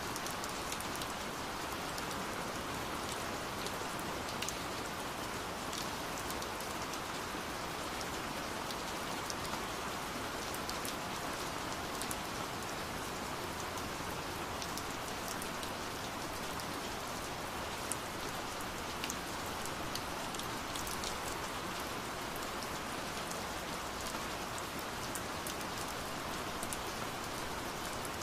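Steady rain falling, an even hiss with scattered single drop ticks.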